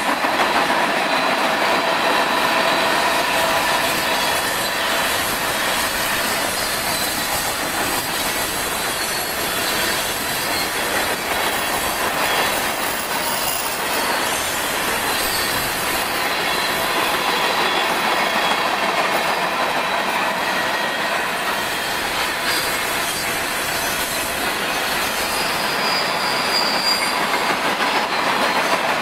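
Freight train cars (tank cars and gondolas) rolling steadily past through a curve: a continuous clatter of wheels on rail, with the wheel flanges squealing faintly on the curved track.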